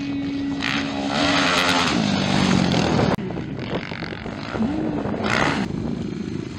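Motocross bike engines revving hard as the bikes pass, the pitch rising and falling with the throttle. The sound changes abruptly about three seconds in.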